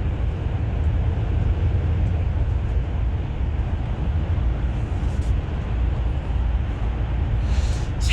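Steady low engine and road rumble heard from inside a moving bus, with a short hiss near the end.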